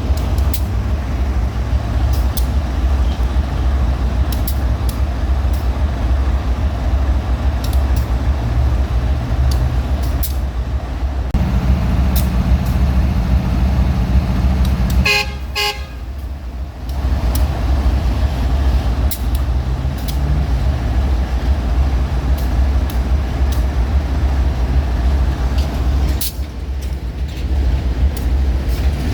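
GE diesel-electric freight locomotives running with a heavy, steady low rumble. A short horn blast sounds about halfway through, and the rumble briefly drops away while it plays.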